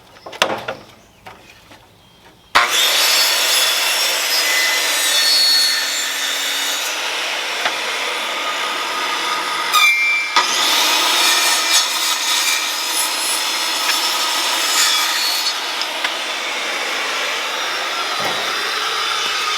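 Saw cutting through a yellow pine 2x12 board, marking off the 45-degree corners. The cutting starts abruptly about two and a half seconds in and runs steadily, with a brief break about ten seconds in.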